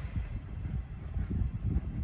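Wind buffeting the microphone in uneven low gusts, over the fading rumble of a train moving away down the line.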